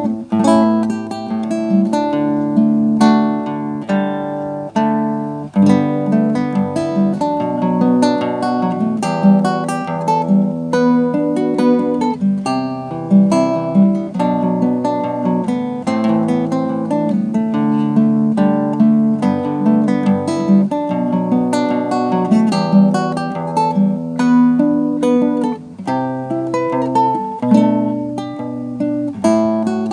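Acoustic guitar playing an instrumental arrangement of a song, a picked melody over plucked and strummed chords.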